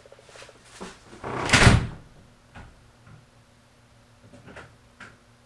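A single loud thud about a second and a half in, then a few light knocks and clicks: someone moving about the workshop to fetch a piece of wood.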